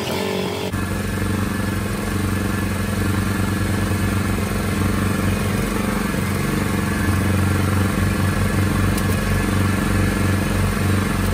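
Small gasoline engine on a Salsco round bale silage wrapper, running steadily as it drives the wrapper, and growing a little louder in the second half.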